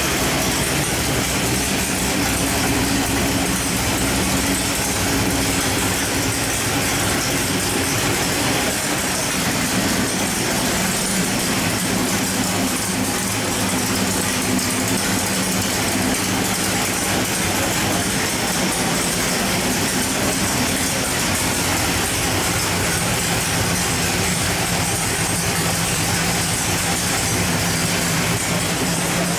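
Carbureted 434 cubic-inch small-block Chevrolet stroker V8 running steadily on an engine dyno, held at an even speed with no revving.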